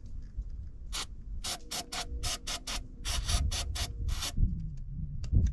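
Quick rhythmic hissing strokes, about four to five a second, from cleaning heavy carbon deposits off a Honda Accord's EGR parts with starter fluid. The strokes start about a second in and stop after about four seconds.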